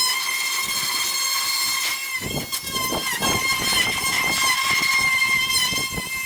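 A small electric motor running with a steady high-pitched whine, with irregular rough scraping noise underneath that grows from about two seconds in.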